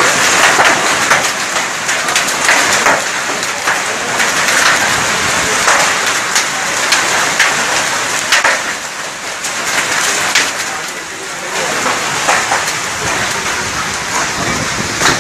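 Heavy rain mixed with hail beating on wet ground: a dense steady hiss broken by many sharp individual hits.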